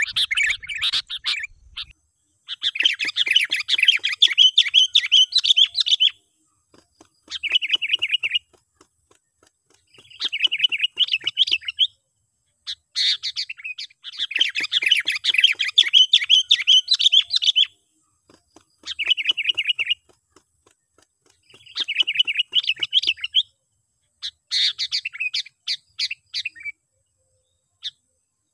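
Sooty-headed bulbul lure call: bouts of rapid, chattering calls, each one to several seconds long, repeated with short silent gaps about eight times.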